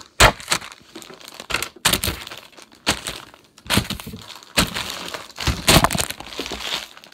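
Close handling noise: irregular crackling, rustling and knocks against the camera's microphone as it is set in place, with a sharp crack about a quarter second in.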